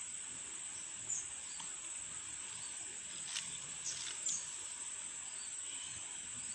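Insects trilling steadily at one high pitch over a faint even hiss, with a few brief clicks in the middle.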